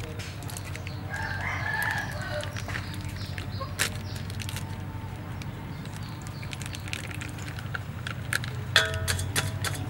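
A rooster crows once, about a second in, over scattered crinkling clicks from foil seasoning sachets being squeezed out over a metal bowl.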